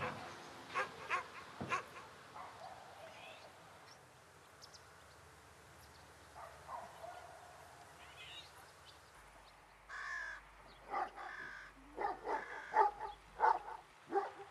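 A flock of crows cawing: a few calls in the first two seconds, then a quick run of calls in the last few seconds as the birds flap off a power line.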